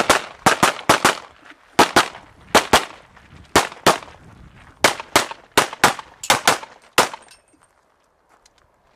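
Pistol gunshots in a fast string of about seventeen shots. Most come as quick double taps, with short pauses between the pairs as the shooter moves from target to target, and the string ends about seven seconds in.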